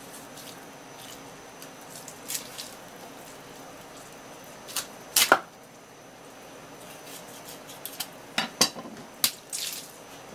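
Filleting knife cutting along the backbone of a large sea bream on a wooden cutting board: a series of short scrapes and clicks, the loudest just past five seconds in, with a cluster more near the end.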